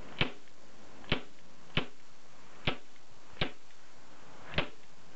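ASG Steyr M9-A1 CO2 airsoft pistol firing six single shots, irregularly spaced about a second apart, each a sharp short pop. Its slide is fixed and does not cycle, so each shot is a bare gas report with no blowback clack.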